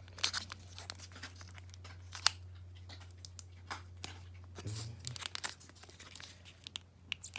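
Foil wrapper of a Digimon trading-card booster pack crinkling and crackling in the hands, in scattered sharp crackles, as it is worked at to tear it open; the wrapper is tough and resists tearing.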